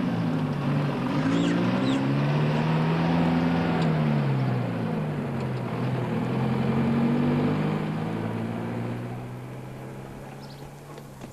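Lorry engine pulling away, its note rising and falling several times as it drives off, then fading away over the last few seconds.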